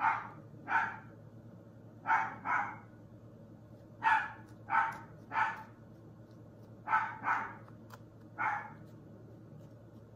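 A dog barking over and over: about ten barks in groups of one to three, each group a second or so apart.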